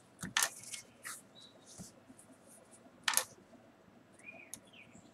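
Pencil writing on paper: short scratchy strokes and small taps, with two louder scrapes about half a second in and about three seconds in.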